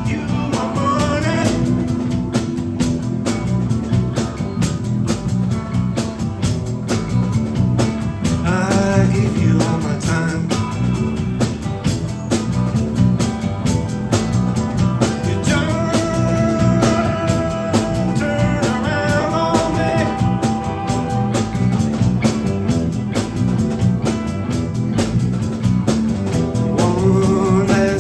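Instrumental break in a blues-rock song: a lead guitar plays long held and bending notes over bass and a steady drum beat.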